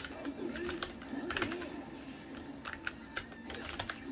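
Keys of a Xenix StormX Titan SE membrane gaming keyboard being pressed rapidly for game inputs: irregular clusters of soft clacks, densest about a second and a half in and again near the end.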